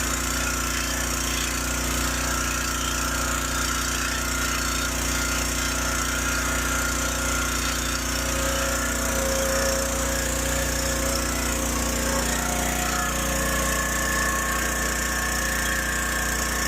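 Micro drain jetter running steadily, its pump driving high-pressure water through the hose to clear a clogged drain line. A few steady tones in the machine sound shift slightly about twelve seconds in.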